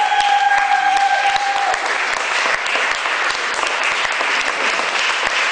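Audience applauding, with one long high call over the clapping near the start, rising and then held for about two seconds.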